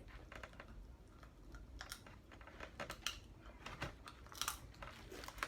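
Scattered light clicks and crinkles from food being handled at the table, with a brief cluster of louder crackles near the end.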